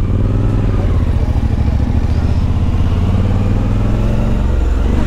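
Motorcycle engine running under way, heard from the bike itself, its pitch shifting briefly in the first second and then holding steady.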